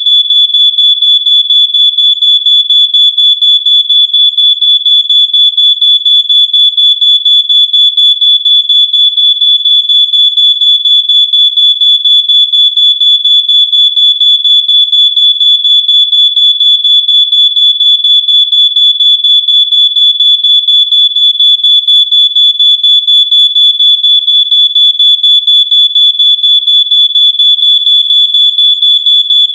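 Smoke alarm sounding its alarm: a loud, high-pitched beep repeated rapidly and evenly with very short gaps, without letting up.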